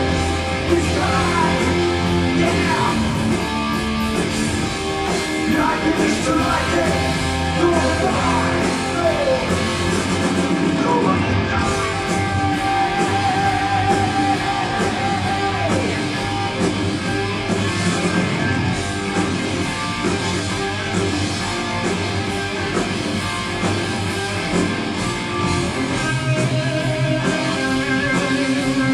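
Heavy metal band playing live, electric guitars to the fore over a steady beat.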